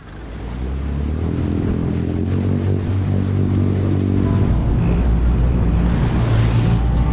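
A boat's engine running with its wake churning and splashing behind it and wind on the microphone. The engine note changes about four and a half seconds in.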